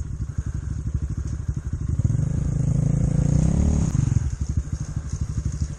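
Enduro motorcycle engine idling with a steady low pulse, then given throttle about two seconds in: the note rises and swells, and drops back to idle just before the four-second mark.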